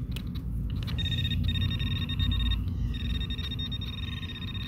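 Metal detector giving a steady high tone in long stretches broken by short gaps, over a low rumble.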